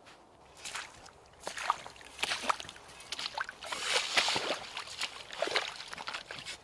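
Rubber boots wading through a shallow stream of snowmelt, splashing and sloshing with each step, starting about half a second in.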